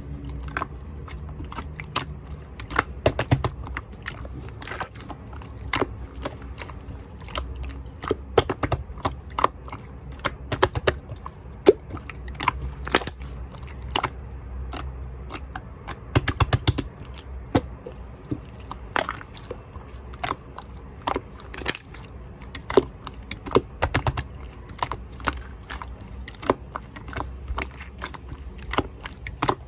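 Soft green slime being squished and stretched by hand, giving irregular sticky clicks and pops.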